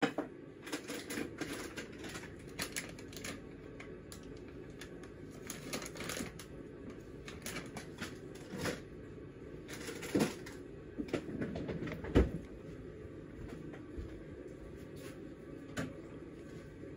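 Land hermit crabs moving about in coconut-fibre substrate and rotting wood: irregular light clicks and scratching rustles, with one sharper knock about twelve seconds in.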